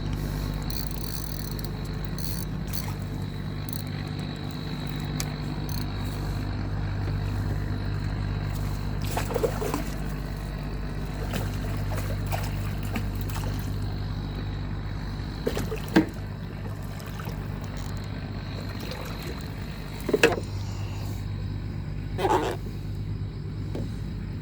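A small motor running steadily with a low, even drone. A few short, sharper sounds rise above it partway through and near the end.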